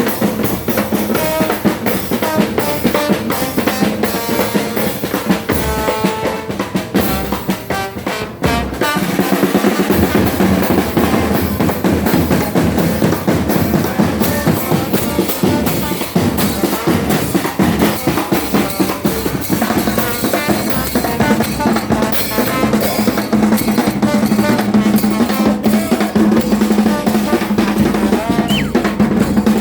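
Chocoan chirimía band playing: snare and bass drum keep a driving beat under a melody from wind instruments. The music breaks briefly about eight seconds in and comes back fuller.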